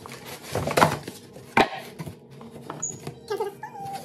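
Cardboard box flaps being pulled open and handled, rubbing and scraping, with a sharp knock about a second and a half in.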